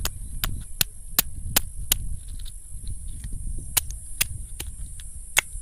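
A stone striking a snail shell resting on another rock, cracking it: a run of six sharp knocks at about two and a half a second, a pause of nearly two seconds, then four more.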